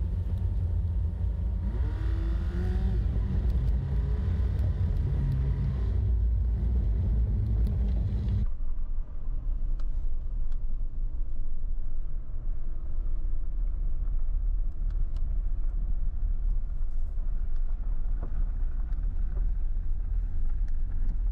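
A GWM vehicle driving: a steady low rumble of engine and road noise. About eight seconds in, the higher hiss cuts off suddenly and a duller rumble continues.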